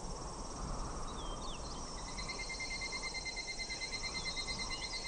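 Outdoor insect chorus: a steady high shrill, joined about two seconds in by a pulsing trill, with a few short chirps over it.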